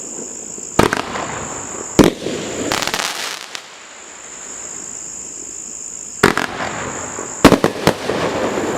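500-gram fireworks cake firing: sharp, widely spaced bangs of shots bursting, with a spell of crackling about three seconds in and a quick cluster of bangs near the end.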